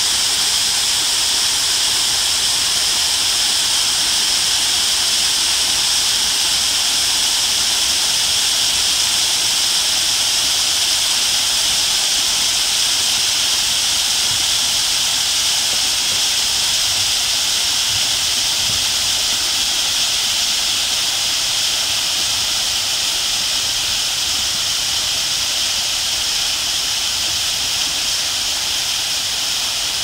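Man-made waterfall: sheets of water pouring steadily over the ledges of a tall water wall and splashing into the pool below, an even, unbroken rush of falling water.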